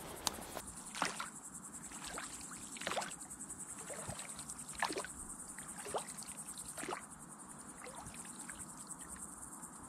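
Oars of an inflatable boat dipping and pulling through water, a stroke about every second. A steady high chirring of crickets runs underneath.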